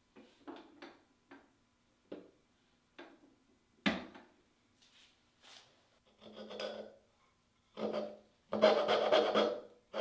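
A few scattered knocks and clicks of tools being handled, then a coping saw cutting the waste out of a walnut dovetail board: rough back-and-forth strokes that start about six seconds in and grow louder and quicker near the end.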